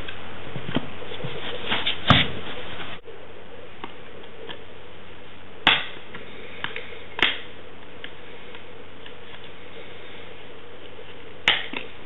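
A few sharp plastic clicks and snaps, spread several seconds apart, from the hard plastic clamshell pack of a SO-DIMM memory module being handled and pried open, over a steady hiss.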